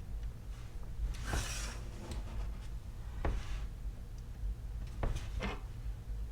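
Soldering work on an XT30 connector: three short hissing bursts about two seconds apart over a steady low hum.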